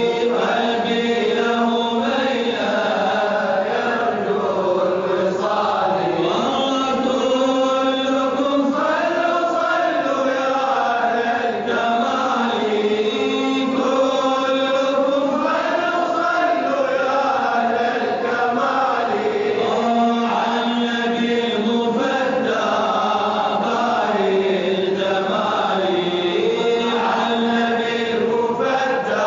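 Islamic madih, a devotional praise song, chanted by a male voice in long sliding, held sung lines.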